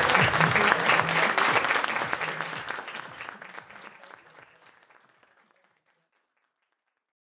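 Audience applause, dense clapping that fades out steadily to silence over about five seconds.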